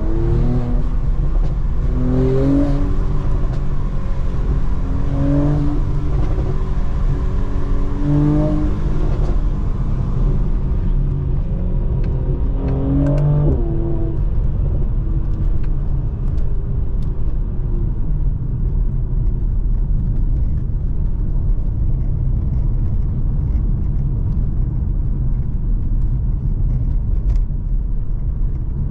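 Mercedes-AMG C43's 3.0-litre twin-turbo V6 under way, its note rising in pitch in short spells about five times over the first half, then settling to a steady low drone with road noise.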